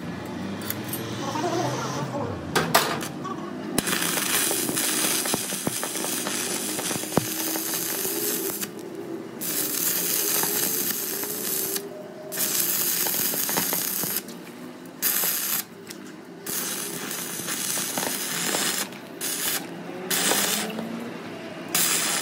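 Stick (arc) welder welding a truck's steel rear axle: the arc crackles and hisses in runs of a few seconds, stopping and restarting several times from about four seconds in. The weld is a repair of an axle that cracked under overloading.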